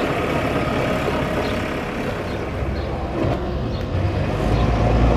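Diesel tractor engines running as tractors drive through the yard. The low engine sound grows louder over the last second or so as another tractor comes closer.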